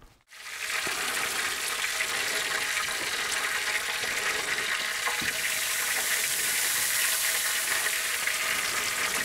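Steady sizzling inside a hot-smoking cabinet, from fish just off the heat and its drippings on the hot tray below. It starts abruptly after a moment's silence and holds an even hiss throughout.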